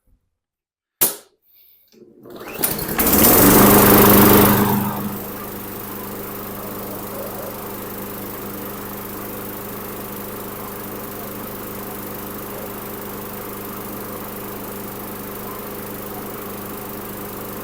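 Briggs & Stratton 500E series 140cc mower engine pull-started, catching on the first pull. After a sharp click it fires up, runs loudly and briefly at high speed, then settles to a steady run. It is running on fresh gasoline, its tank and carburetor cleaned of fuel that smelled like kerosene or diesel.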